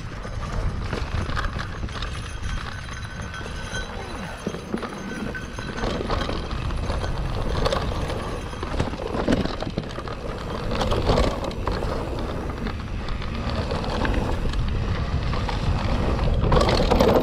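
Mountain bike riding down a dirt forest trail: a steady low rumble of wind and tyres on the camera microphone, with the bike's chain and frame knocking and rattling over bumps, which the rider says is so rattly that a chain link should come out. The rattling gets louder near the end.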